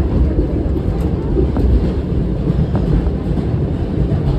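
New York City subway Q train running along the track: a steady low rumble of wheels on rail.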